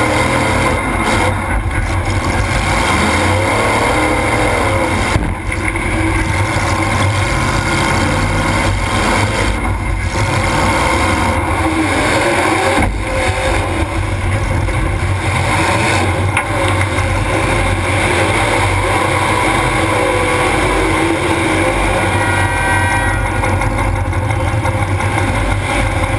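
Demolition derby car's engine running hard and revving, heard from inside the car, with a few sharp knocks.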